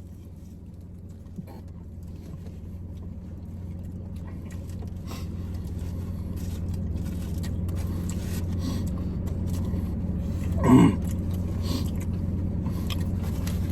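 Steady low hum of a car engine running, growing gradually louder, with faint scattered clicks. A short pitched vocal sound, like an 'mm' while eating, comes about eleven seconds in.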